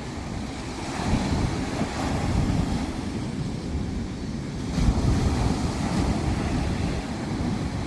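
Sea waves washing onto a sandy beach, with wind buffeting the microphone; the sound swells about a second in and again around the middle.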